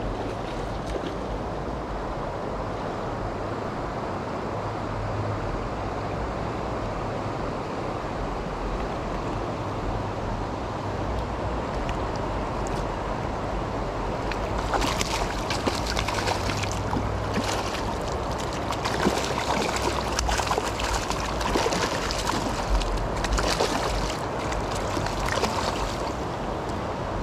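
River water rushing steadily, with wind rumbling on the microphone. From about halfway a run of irregular sharp crackles and splashes comes in over it, then dies down near the end.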